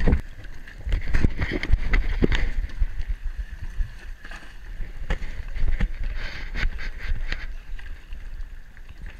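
Water sloshing and splashing against a dive boat's stern, with a heavy, uneven low rumble of wind on the microphone and scattered knocks. It is loudest in the first few seconds and eases toward the end.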